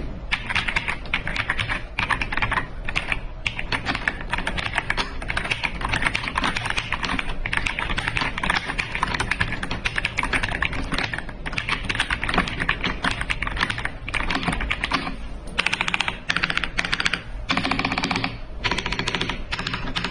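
Fast typing on an AJAZZ AK820 75% mechanical keyboard: a quick, continuous run of key clicks with a few brief pauses.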